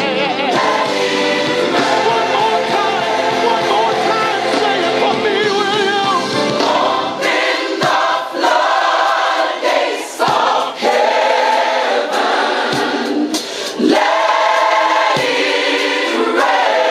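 A choir singing a gospel worship song with accompaniment; the low bass part drops out about seven seconds in, leaving mainly the voices.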